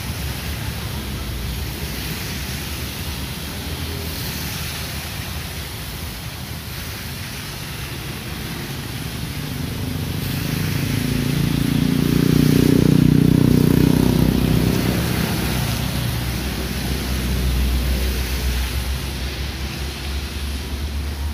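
Diesel locomotive's engine working hard under load as it hauls an empty cement train uphill on wet rail: a low rumble that swells to a peak about halfway through, then eases off. A steady hiss of rain runs underneath.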